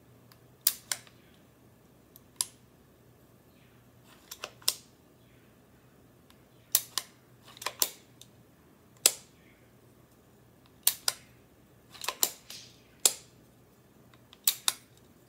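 Open-bolt Gevarm .22 semi-automatic action in an aluminum receiver being cycled by hand: the steel bolt is drawn back and let go, giving sharp metallic clacks, singly and in quick pairs, about ten times.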